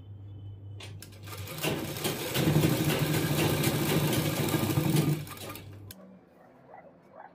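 Sewing machine stitching a seam: it starts with a low hum, runs loud and fast through the middle, then slows and stops about six seconds in.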